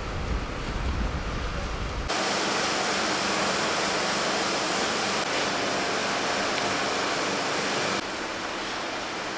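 Steady machinery noise inside a heating power plant: a low rumble that switches abruptly about two seconds in to a loud, even hiss, which drops a little near the end.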